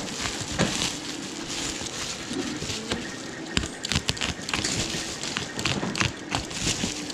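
Packaging being pulled and worked at by hand to open it: irregular rustling and crinkling with scattered small clicks and knocks.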